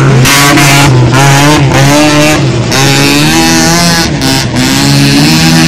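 Opel Astra race car's C20XE 2.0-litre 16-valve four-cylinder engine revving hard, its pitch climbing and dropping several times with throttle and gear changes.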